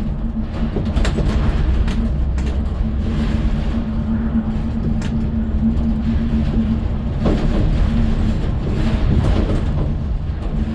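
Steady vehicle rumble: an engine and road noise running evenly, with a constant low hum.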